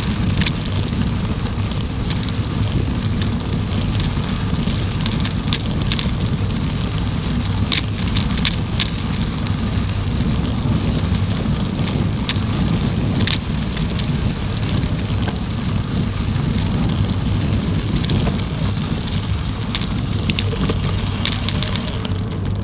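Steady wind buffeting and low rumble on the microphone of a bicycle-mounted camera riding over pavement, with a handful of short, sharp clicks and rattles scattered through.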